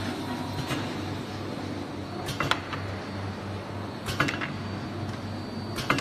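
UV coating machine with an automatic sheet feeder running: a steady machine hum, with a short clatter from the feeder about every two seconds.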